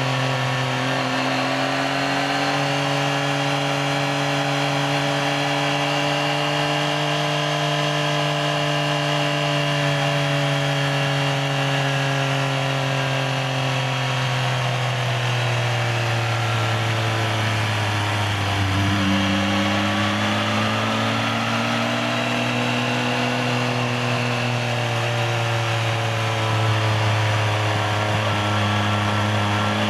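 Yamaha XSR900's inline three-cylinder engine running under way at moderate revs. Its pitch sinks slowly, drops sharply about two-thirds of the way through, then climbs again toward the end.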